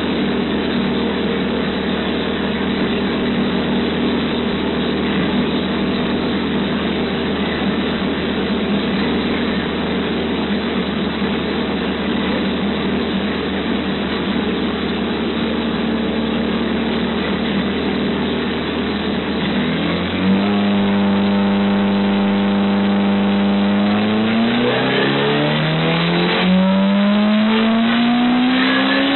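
Suzuki GSX-R 1100 inline-four engine, compound-turbocharged and running on methanol, running steadily on a dyno. About twenty seconds in it steps up to a higher steady speed, and for the last few seconds the revs climb steadily.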